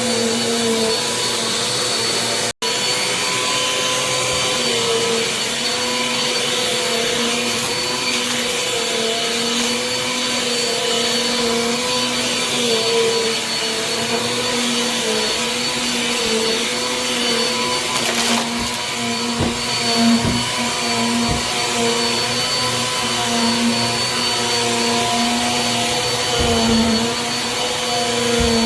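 Small Bissell upright vacuum cleaner running steadily, its motor hum wavering slightly in pitch, with a momentary dropout about two and a half seconds in and a few low thumps later on.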